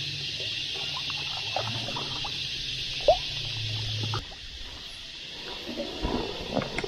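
Paddling on calm water: small trickles and drips off the paddle blade over a steady hiss, with one short rising squeak about three seconds in. After a cut about four seconds in the hiss drops away, leaving light water lapping and a few soft knocks of the paddle against the board.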